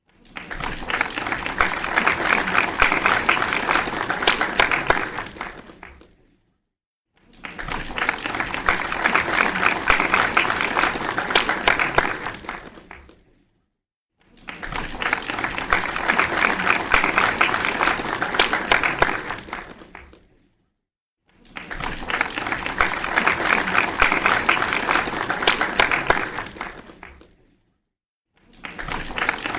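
Crowd applause, a dense patter of many hands clapping, in bursts of about six seconds that start abruptly and fade out. Each burst is followed by about a second of silence, four times over, and a fifth begins near the end.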